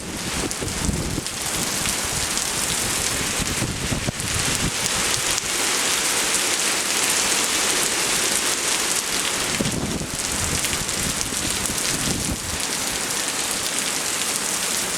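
Hurricane rain and wind: a loud, steady hiss of heavy rain, with low rumbling gusts near the start and again about ten and twelve seconds in.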